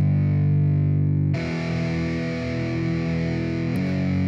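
Background music: a distorted electric guitar holding sustained chords that change twice, the instrumental opening of a rap track.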